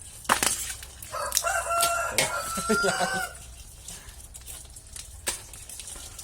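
A rooster crowing once, one long call of about two seconds starting about a second in. Sharp knocks come just before it and again near the end.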